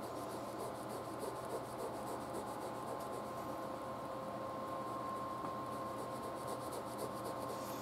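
A pen scratching on paper in quick, repeated short strokes as closely spaced hatching lines are drawn to darken a shaded square.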